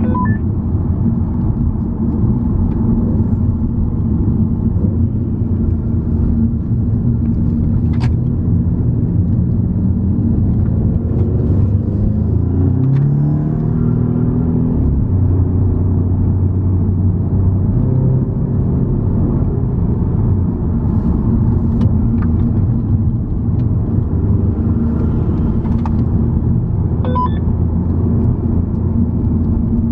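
Car engine and road noise heard from inside the cabin while driving. The engine note climbs, drops at a gear change about halfway through, then climbs again.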